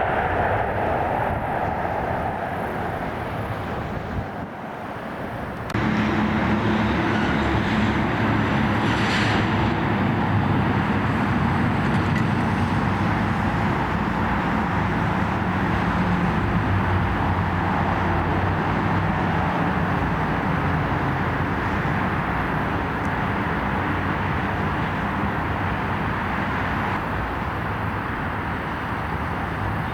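Jet airliner engine noise at an airport, steady. About six seconds in it changes abruptly from a Boeing 737-800 to a louder, lower engine noise from a Cargojet Boeing 767-200, which holds steady.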